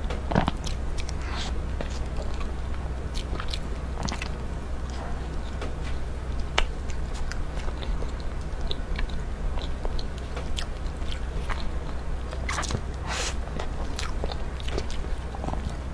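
A person chewing soft matcha sponge cake with cream, with scattered wet mouth clicks and smacks. A steady low hum sits underneath.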